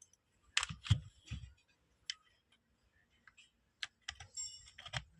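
Plastic clicks and light knocks from handling a portable Bluetooth speaker while switching it to play from a pen drive. There are three clicks with dull knocks about half a second in, a single click near two seconds, and a cluster near the end with a brief high tone.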